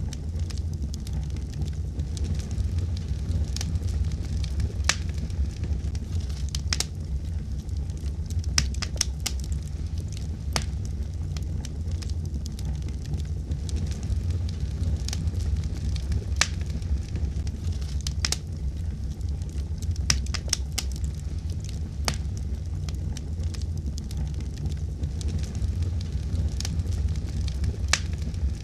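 Campfire burning: crackling and popping at irregular intervals, with a few sharper cracks, over a steady low rumble.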